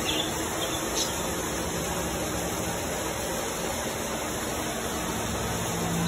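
Steady rushing of a small water feature's waterfall, with a short faint high chirp about a second in.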